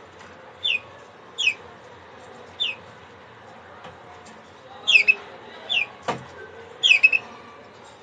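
Domestic canary giving short chirp calls that fall in pitch, about six of them at uneven gaps, some doubled. A single sharp click comes about six seconds in.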